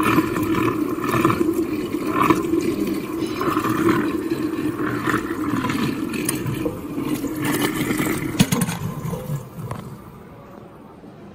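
Lab vacuum homogenizer mixer running with water churning in its stainless vessel, a steady motor hum under the sloshing. About eight and a half seconds in the hum drops in pitch and the sound falls away, as the machine winds down.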